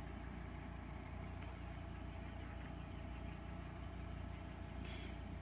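Steady low hum of background room noise, with a faint short high blip near the end.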